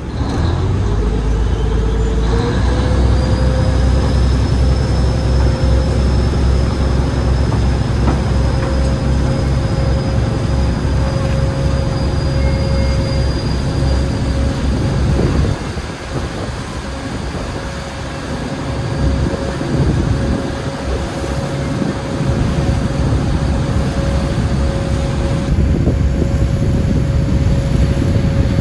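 River boat's engine running under way, rising in pitch over the first few seconds as it speeds up, then holding a steady loud drone, easing off a little about halfway through before picking up again.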